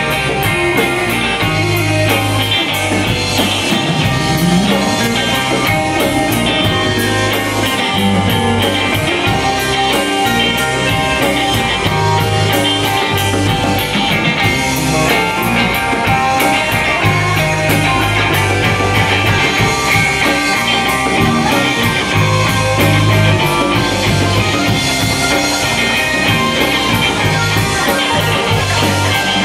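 Live rock band playing loudly and continuously: two electric guitars, an electric bass guitar and a drum kit keeping a steady beat.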